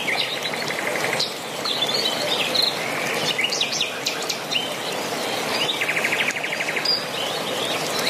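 Small birds chirping and calling, with a rapid trill near the start and again about six seconds in, over the steady rushing hiss of a stream.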